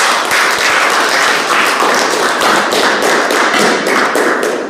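Audience applauding: many hands clapping in a dense, even patter, louder than the talk before it, that dies away right at the end.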